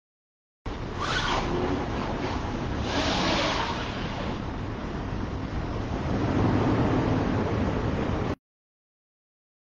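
Steady rushing noise with short rustles about one and three seconds in. It starts and stops abruptly, cutting to dead silence near the end.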